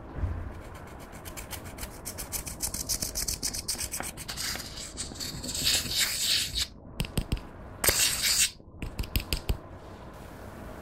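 Plastic stick scraping pressed eyeshadow out of its metal pan in quick scratchy strokes, breaking the powder up. The scraping turns denser and louder about halfway through, and a few short clicks follow near the end.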